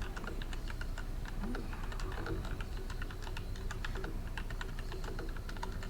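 Tecware Phantom mechanical keyboard being typed on fast and steadily: a continuous stream of key clicks, several a second.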